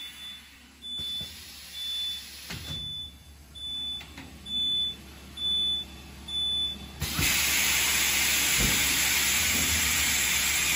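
Vacuum compression packing machine sounding a series of seven short high-pitched beeps, a little under a second apart, over a low hum, then a loud steady hiss of air starting about seven seconds in.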